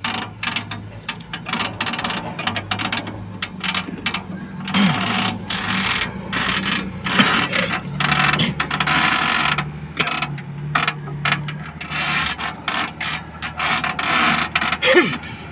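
Ratcheting wrench clicking in quick runs as it turns a bolt on a bulldozer's hydraulic fitting, over a steady low hum.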